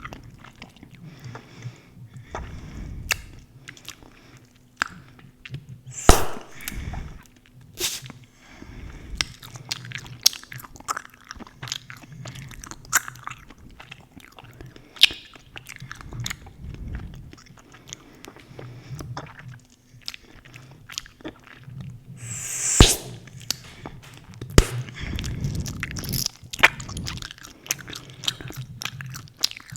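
Close-miked gum chewing: a steady run of wet smacks and clicks from the mouth. Several much louder sharp snaps stand out, the loudest about six seconds in and again about two-thirds of the way through; these are bubble-gum bubbles popping.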